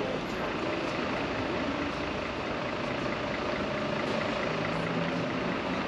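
City street traffic noise with the steady running of a city bus engine idling.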